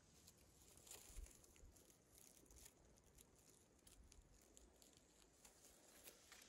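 Near silence broken by faint, irregular small clicks and ticks.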